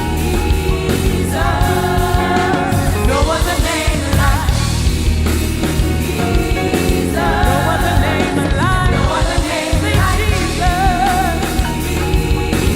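Live gospel worship music: singers holding wavering, drawn-out phrases over a band with a steady bass line.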